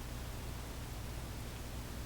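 Room tone: a steady low hiss with a faint low hum, with no distinct clicks or other events.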